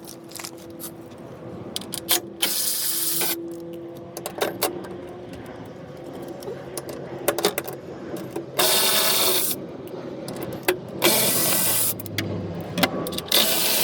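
Handheld cordless power tool on a 12 mm socket, run in four short bursts of about a second each, backing out the four bolts that hold the factory front skid plate. Sharp clicks and knocks from handling the tool and bolts come between the bursts.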